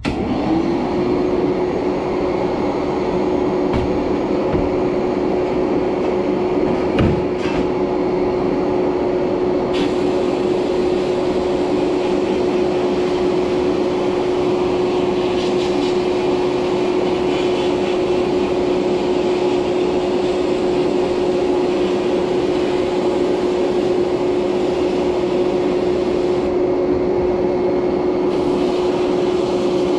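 Bead-blast cabinet in use: a steady hiss of air and 80 grit glass beads blasting a steel sign panel, over a steady motor hum that comes up to speed right at the start. A brief knock about seven seconds in.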